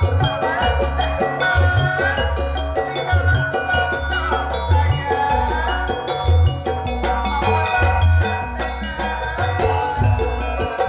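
Ensemble music with mallet percussion and steady low drum beats under a melody that slides and bends in pitch.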